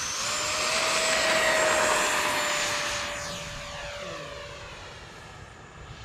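E-flite F-16 70 mm electric ducted-fan jet at full power on its takeoff: a high fan whine over a rush of air, swelling to its loudest about a second and a half in, then fading as it climbs away.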